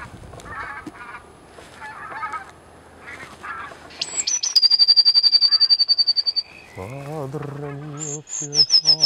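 Bird calls in the open: wavering calls for the first few seconds, then a fast trill of high, evenly repeated notes. From about seven seconds in, a baritone sings an operatic phrase with strong vibrato while high bird notes go on over it.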